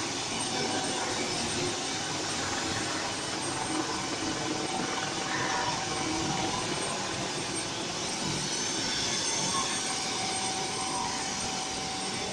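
Landed helicopter running on the ground: a steady turbine whine over an even rushing noise, with no change in level.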